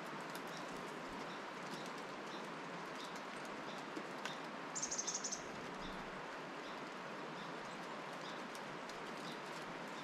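A bird's short, high-pitched call of several quick notes about five seconds in, over a steady outdoor hiss with faint scattered ticks.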